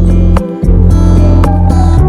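Background music with plucked guitar over a strong bass and a steady beat.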